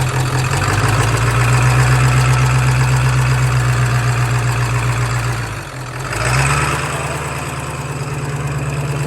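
Ford F-350 truck's engine idling steadily. A little over five seconds in, the sound dips briefly, then the engine note comes back slightly higher.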